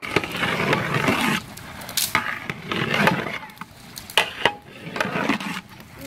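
Long-handled metal ladle scraping and stirring through rice in a large aluminium cooking pot, in repeated scraping strokes with a few sharp knocks of metal on metal.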